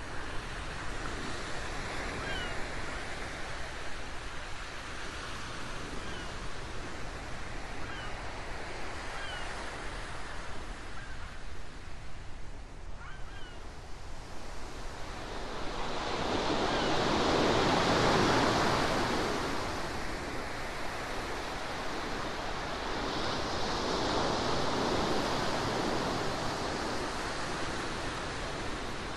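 Ocean waves in a sea-sound recording: a steady wash of surf with two waves swelling up and breaking, a louder one about halfway through and a softer one near the end. A few faint short high chirps sound over the first half.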